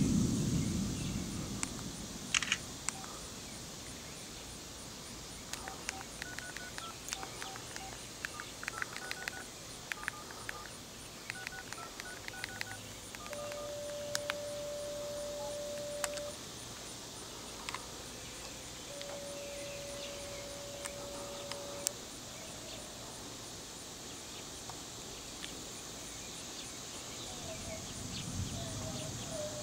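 Outdoor storm ambience: wind rumbling on the microphone in gusts at the start and again near the end, over a steady hiss, with scattered short chirps in the middle. Two flat, steady tones, each about three seconds long and a few seconds apart, sound partway through.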